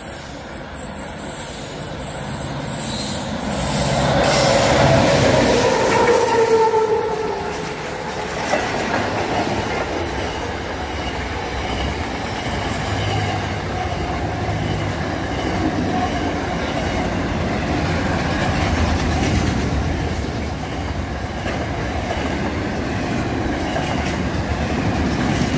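Diesel freight train approaching and passing at speed: it grows louder to a peak about four to seven seconds in, with a horn note that falls in pitch as the locomotive goes by. Then the long train of container wagons rumbles and clatters past steadily.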